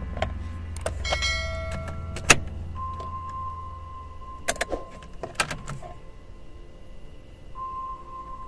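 Ignition key being turned in a Citroën C2/C3's ignition lock: the key ring jingles and the lock clicks, with one loud click about two seconds in, then two more clicks around four and a half and five and a half seconds as the key is turned back on.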